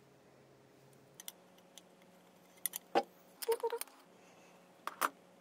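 A few scattered light clicks and clinks of small hard objects being handled, the loudest about three seconds in, over a faint low hum.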